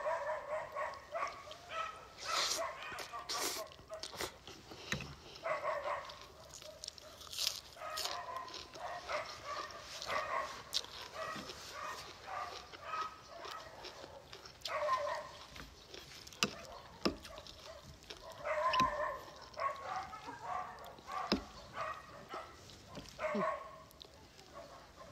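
A dog whining and whimpering in short high-pitched calls every few seconds, mixed with close-up eating sounds: crunching of raw vegetables, chewing and slurping of noodles.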